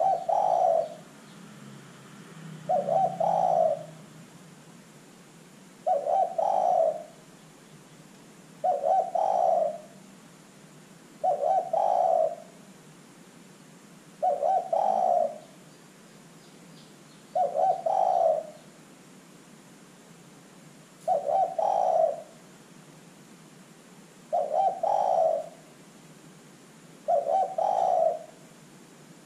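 Spotted dove cooing: a short coo phrase repeated about every three seconds, ten times, each under a second long, over a quiet background hiss.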